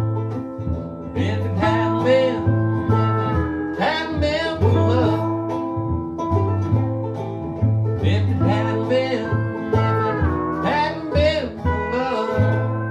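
An acoustic string band plays an instrumental passage: plucked resonator guitar and ukulele, cello bass notes, and pedal steel holding and bending notes. A last chord is struck near the end and starts to ring out.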